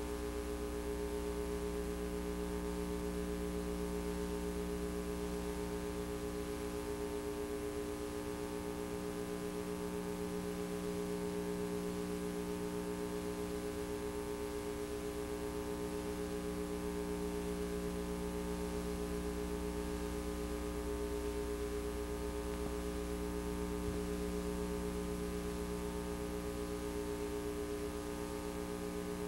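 Steady electrical hum and buzz, several fixed tones over a faint hiss, with no sound from the scene itself. The VHS tape carries no audio, so this is only the noise of the tape transfer.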